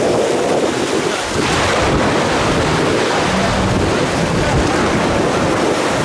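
Wind buffeting the microphone over the wash of sea water, with a jet ski's engine running as it speeds away through the shallows.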